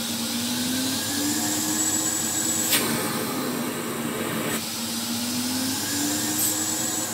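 Philips P99 cylinder vacuum cleaner running in automatic mode, a steady rush of air over the motor's hum. The motor note drifts up and down as the electronic control varies the suction power. There is one short click about three seconds in.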